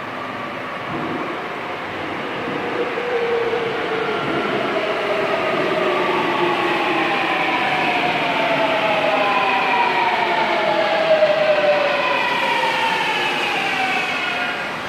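Busan Metro Line 2 subway train pulling into an underground station. The running noise grows louder over the first few seconds, and the traction motors' whine falls in pitch in several tones as the train brakes to a stop.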